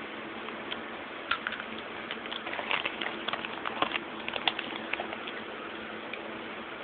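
A run of light, irregular clicks and taps over a steady hiss, densest in the middle and dying away after about five seconds.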